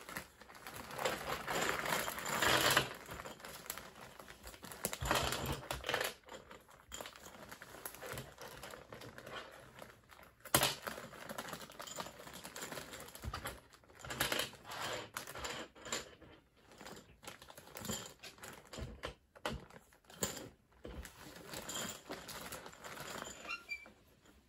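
LEGO bricks clicking and rattling as they are handled and fitted together: a busy string of irregular small plastic clicks, with a couple of louder knocks.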